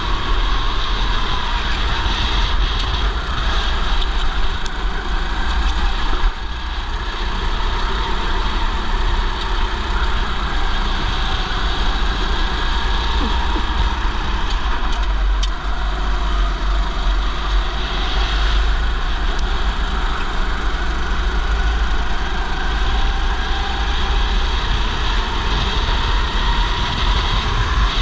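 Go-kart engine running under load, its pitch falling and rising as the kart slows for corners and accelerates out of them, over a heavy low rumble of wind and vibration on a helmet-mounted camera.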